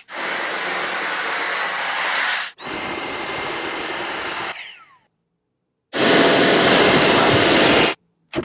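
Dyson vacuum cleaner running with a steady whine, heard in short clips that cut off abruptly. The second clip fades out about five seconds in, then there is a second of silence before a louder stretch.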